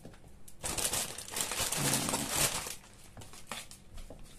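Head of iceberg lettuce and its plastic wrapping being handled, a crinkling and rustling for about two seconds that then dies down.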